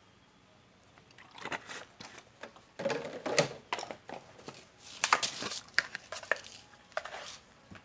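Seasoning containers and a utensil being handled over a bowl of beaten egg: irregular clicks, taps and rustles starting about a second in.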